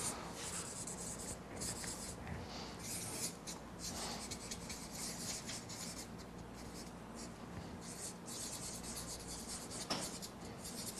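Marker pen writing a line of words on flip-chart paper: a run of short, irregular scratchy strokes.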